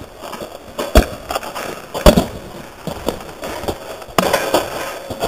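Basketball being dribbled on hard-packed dirt: a thud about once a second, four bounces.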